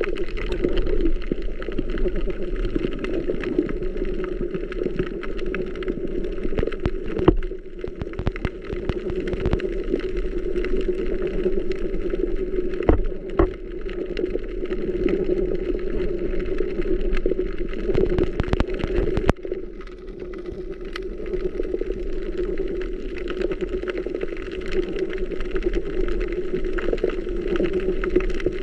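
Underwater sound over a dead coral reef: a steady hum with a low rumble beneath it, broken by scattered sharp clicks, a few of them louder.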